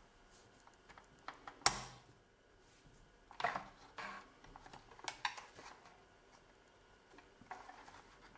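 Screwdriver prying a metal cigarette-lighter socket out of a BMW E46 plastic console housing: scattered small clicks and scrapes of metal against plastic, with one sharp click about a second and a half in.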